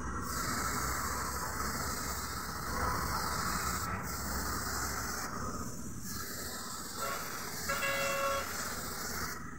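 Compressed-air gravity-feed spray gun hissing steadily as it sprays paint, with brief dips when the trigger eases. A short horn toot sounds about eight seconds in.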